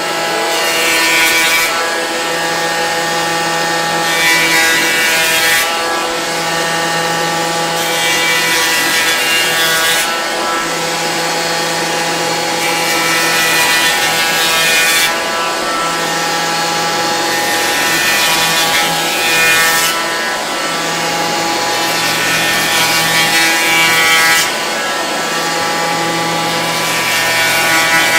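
Festool HL 850 electric planer with a Rustic coarse cutter head running steadily with a constant motor whine while distressing a wood surface in repeated diagonal passes. The rough cutting noise swells and eases every few seconds as each pass bites into the board.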